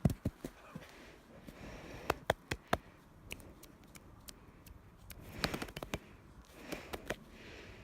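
Irregular sharp clicks and knocks in quick clusters, with a person's heavy breathing in between.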